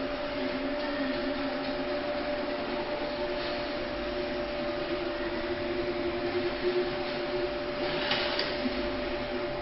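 Steady background hum and hiss carrying two steady tones, from an unseen fan or appliance. About eight seconds in come a few faint rustles as the rubber timing belt is threaded through the printer frame.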